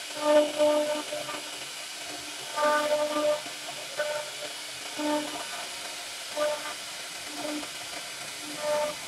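CNC router spindle carving a wooden door panel: a steady hiss of cutting, with a humming tone that swells and fades about once a second as the bit works through the wood.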